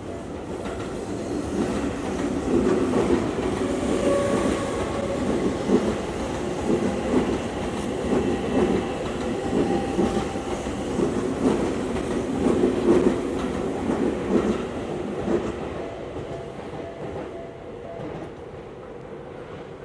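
Tokyu Toyoko Line electric train passing at a level crossing, its wheels clattering rapidly over the rail joints. The sound builds over the first couple of seconds and fades away over the last few.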